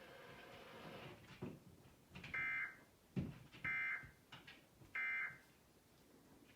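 Emergency Alert System end-of-message code on NOAA Weather Radio, closing the Required Monthly Test: three short, buzzy digital data bursts about 1.4 seconds apart, with a few faint clicks between them.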